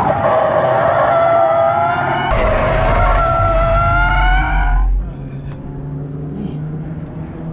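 Chevrolet Camaro tyres squealing through a corner at the limit of grip, a loud squeal of several pitches that rises slightly. About five seconds in it stops abruptly, leaving a quieter, low engine drone heard from inside the cabin.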